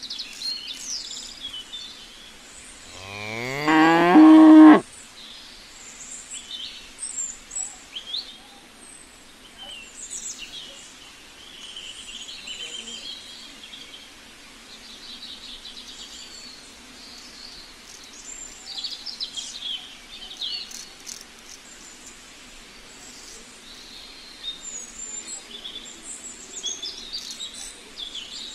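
A cow moos once, about three seconds in: one long call that rises in pitch and cuts off abruptly. Small birds chirp throughout.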